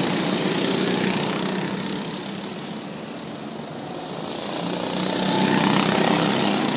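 Go-kart engines buzzing as karts race past close by: loud at first, fading away about two seconds in, then rising again as the next kart comes near around five seconds in.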